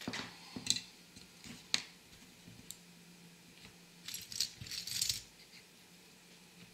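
Small die-cast toy car parts clicking and clattering as they are handled and set down among other parts: a few sharp clicks in the first two seconds, then a longer rattle of parts about four to five seconds in.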